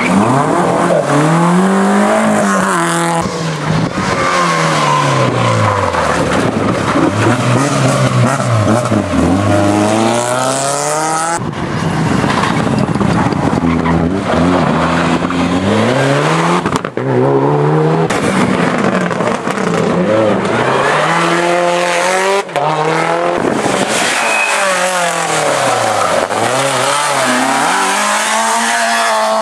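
Rally cars taking a tight bend one after another: a Mk1 Ford Escort, then a Mitsubishi Lancer Evolution, then a Citroën Saxo. Each engine rises and falls in pitch again and again as it accelerates and shifts gears, and the sound cuts suddenly from one car to the next.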